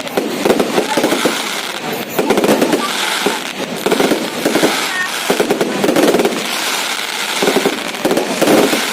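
Fireworks going off in rapid succession: a dense, continuous stream of quick pops and crackles.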